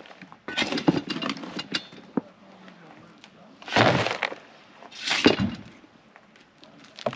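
Shovelfuls of dry, rocky native soil scraped up and tipped into a plastic trash can, heard as about three gritty rushes of falling dirt with small clicks of stones and the shovel.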